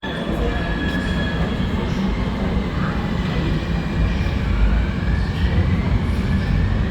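Subway train running through the station: a loud, steady low rumble with thin high whining tones above it, one of which rises in pitch about five seconds in.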